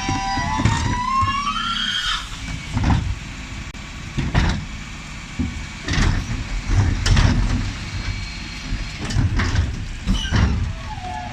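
Dennis Elite 6 refuse truck working its Terberg OmniDEKA bin lifter over a low engine rumble. A whine rises in pitch over the first couple of seconds, then wheelie bins bang and clunk against the lifter several times.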